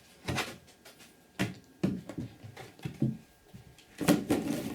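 Handling noise from a cardboard fireworks selection box and its contents: a handful of short knocks and rustles, the longest near the end.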